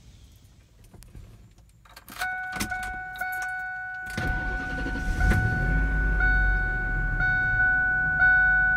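Ford F-150 pickup's engine cranking, catching and settling into a steady idle, heard from the driver's seat, with a few clicks of the key before it. A steady high-pitched tone runs through it.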